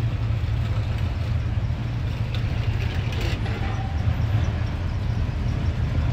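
Classic custom cars' engines rumbling low and steady as they roll slowly past at walking pace; the nearest is a chopped Mercury custom with a padded white top.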